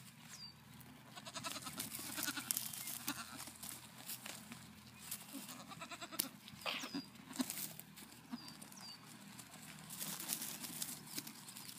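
Nigerian Dwarf goat kids bleating a few times while they jump and scuffle on a hay bale, their hooves knocking and rustling the hay.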